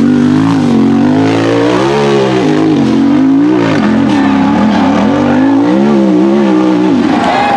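Off-road race buggy's engine revving hard on a steep dirt hill climb, the revs surging up and down over and over as the throttle is worked and the tyres dig for grip.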